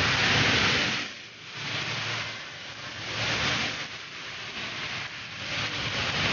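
Heavy rain hissing down, swelling and easing several times.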